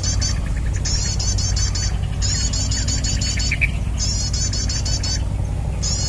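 Bird-trapping lure call played on a loop from a speaker: identical bursts of rapid, high-pitched twittering, each about a second long, repeating every second and a half or so, over a steady low wind rumble on the microphone.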